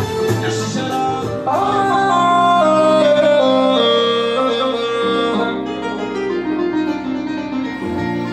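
A man singing through a handheld microphone over instrumental accompaniment, holding long notes with a wavering ornamented run about a second and a half in.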